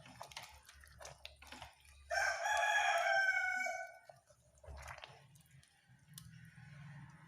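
A rooster crows once, a single call of about two seconds starting about two seconds in. Light knocks and scrapes of a spoon stirring in a pot come before and after it.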